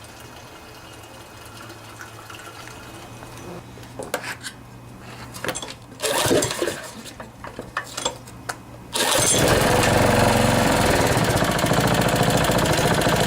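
Single-cylinder Briggs & Stratton Intek side-shaft engine on a rototiller being started: a few knocks and a short loud burst partway through, then the engine catches about nine seconds in and keeps running steadily, now that its carburetor has been cleaned and rebuilt.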